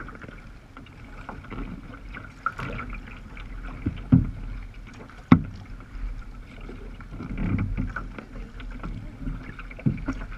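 Choppy sea water splashing and slapping irregularly against a sea kayak's hull as it moves, with sharper knocks now and then, the loudest about four and five seconds in.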